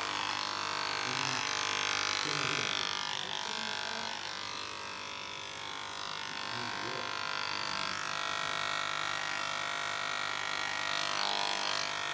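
Cheap electric hair clipper running with a steady buzz during a haircut.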